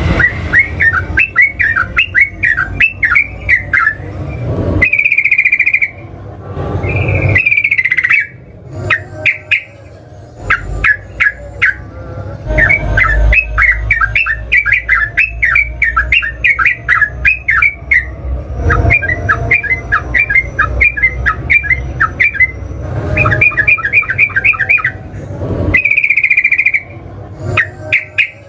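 Yellow-vented bulbul singing a long, rapid chattering song in quick runs of short notes, broken a few times by a longer held whistle.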